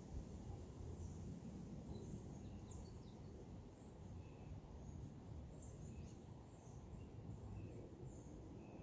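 Faint outdoor ambience: a low steady rumble of background noise with scattered short, high bird chirps, including a few quick downward-sweeping calls.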